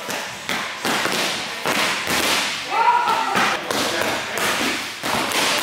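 Boxing gloves smacking into focus mitts in quick, irregular strikes, with several pairs hitting pads at once.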